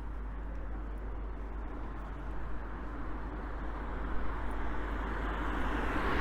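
Street traffic noise, with a vehicle approaching and passing close by, loudest near the end.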